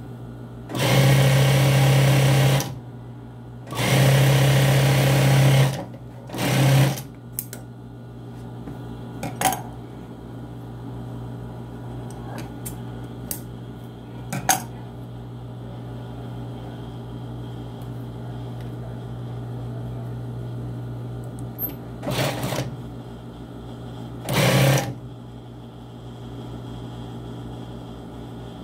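Sewing machine stitching in short runs: two runs of about two seconds near the start, a brief one after, and two short ones late on, with a steady low hum and a few sharp clicks in between.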